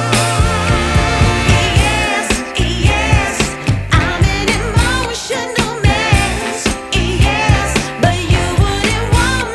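Background music with singing over a steady beat.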